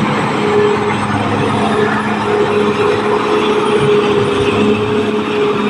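Caterpillar D6R XL bulldozer's diesel engine running steadily, with a steady whine over the engine noise.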